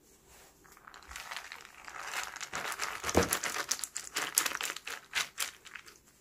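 Soaked mung beans sliding off a woven bamboo tray and pattering onto a damp towel, a dense rustling stream of tiny clicks that starts about a second in and lasts about five seconds, being spread in a layer for sprouting.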